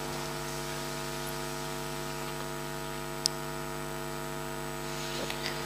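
Steady electrical mains hum, a low buzz made of several even tones, over a faint hiss. A single faint short tick about three seconds in.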